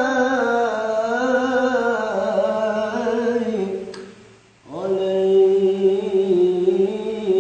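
A solo male voice sings Islamic sholawat unaccompanied, drawing out long held notes with slow melismatic ornaments. Nearly four seconds in, the singing fades into a brief breath pause, then a new long note begins.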